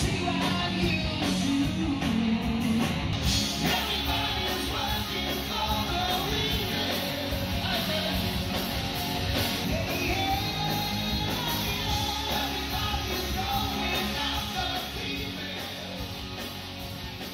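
A live rock band playing, with a singer over electric guitars and drums, heard from the audience. The music fades down near the end.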